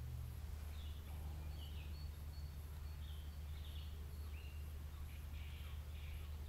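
Faint bird calls at the lakeside: short high chirps every second or so, over a steady low outdoor rumble.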